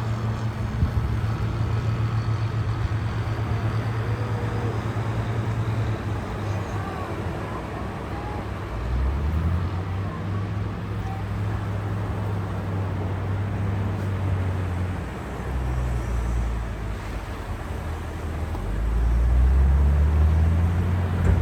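Sea waves washing, under a low motor rumble that shifts in level and swells near the end.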